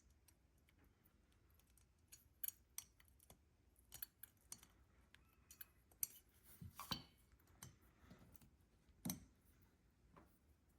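Faint, scattered clicks and taps of small metal carburetor parts being handled while a needle valve is fitted into a Mikuni carburetor body, with a few sharper ticks.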